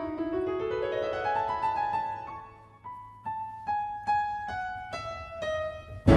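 Background piano music: a run of notes rising in pitch, then single notes struck about two and a half times a second, stepping gently downward. A louder, fuller passage of music cuts in at the very end.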